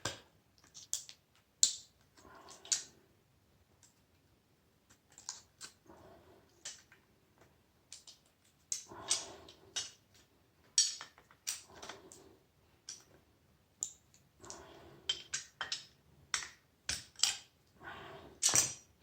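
Metal parts of a hydraulic door closer being worked on by hand: scattered clicks, taps and short metallic scrapes with pauses between.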